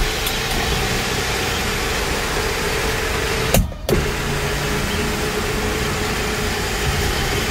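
Electric sunroof motor running with a steady hum as the glass panel slides open. It breaks off briefly about three and a half seconds in, then runs again as the panel slides closed.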